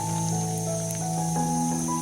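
Background music of held, gently changing notes with a steady low bass line.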